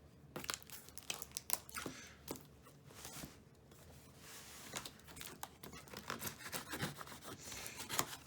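Packing tape being cut and torn from a cardboard shipping box: irregular sharp rips, scrapes and crinkles.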